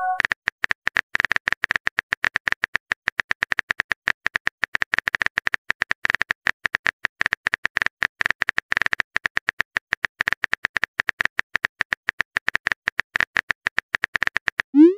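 Rapid phone-keyboard typing clicks, a fast stream of short taps several times a second as a text message is typed out. Near the end, a short rising swoop begins: the message-sent sound.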